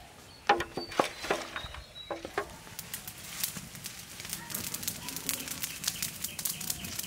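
A wooden spatula scraping and knocking in a metal pot as spice-coated fish are tossed, a few strokes in the first two seconds or so. Then a wood fire of twigs and dry leaves crackling in a clay stove, with quick snaps through the rest.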